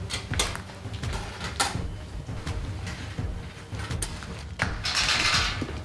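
Handling noise from towels and blankets being draped over covered animal cages on the floor: scattered clicks and knocks of the cages and fabric rustling, with a longer swish of cloth about five seconds in.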